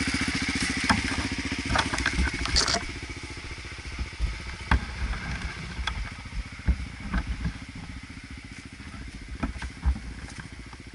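Motorcycle engine running at a steady speed, louder for the first few seconds and then quieter, with scattered knocks and clatter over it.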